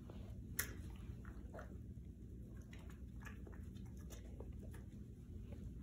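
Boston terrier faintly chewing and licking its lips over a piece of pandesal, a few soft scattered clicks over a low steady room hum, the sharpest click about half a second in.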